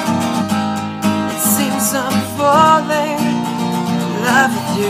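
Background music: a love song with strummed acoustic guitar, in an instrumental stretch between sung lines, with a melody that bends in pitch in the middle.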